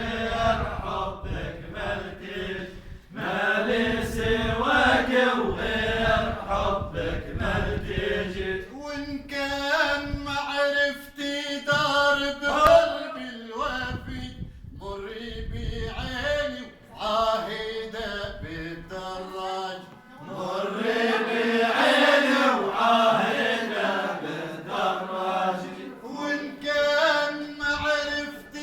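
Arabic song music: an ornamented, wavering melody line, with a low drum beat under roughly the first eight seconds.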